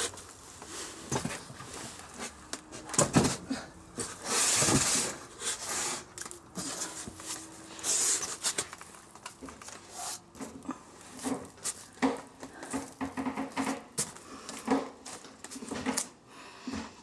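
Handling noise from someone moving about on a floor: scattered light knocks and clicks with rustling and shuffling, the loudest rush of rustle about four to five seconds in.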